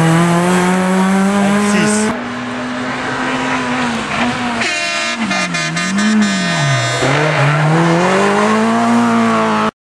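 Rally car engines at high revs in back-to-back clips: first a Peugeot 206 rally car held high, then a Renault Clio rally car whose engine note drops and rises as it downshifts and brakes for a corner. A rapid crackle of pops comes midway, and the engine then climbs again as it accelerates away. The sound cuts off suddenly near the end.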